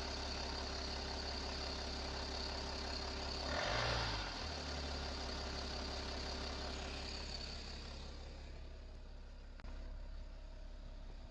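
BMW M57 straight-six diesel in a 525d idling, with a short rev about four seconds in before it settles back to idle. The owner cannot tell whether the noise in question is a worn timing chain rattling or the ZF 6HP automatic gearbox.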